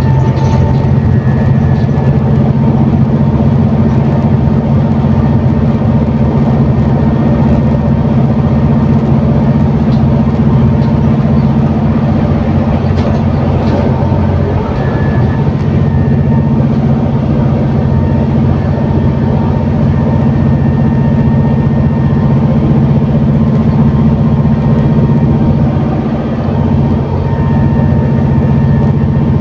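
ADL Enviro400 City double-decker bus's diesel engine and Voith automatic drivetrain running, heard from inside the bus as a steady, loud low drone with road noise.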